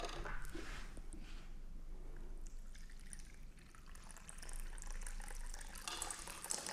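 Water being poured from a small container into a small cup, trickling faintly, until the cup overflows.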